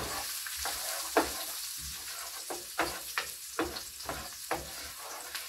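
Onions frying in a nonstick pan with a steady sizzle, while a spoon stirs them, scraping and knocking against the pan in quick irregular strokes, about two or three a second.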